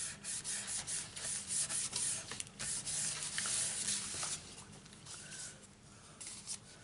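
Hands rubbing and smoothing a glued strip of patterned paper flat onto card, a run of quick papery swishing strokes that dies away about four and a half seconds in.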